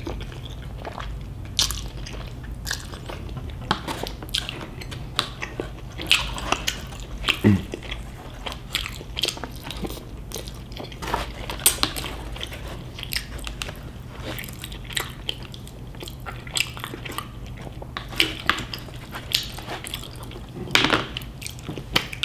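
A person chewing and biting food close to the microphone, with irregular short sharp clicks from the mouth. A steady low hum runs underneath.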